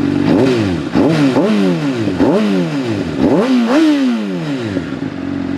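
Honda CBR600 sport bike engine with a Two Brothers aftermarket exhaust, revved in about six quick throttle blips, each rising in pitch and falling back. It settles to a steady idle near the end.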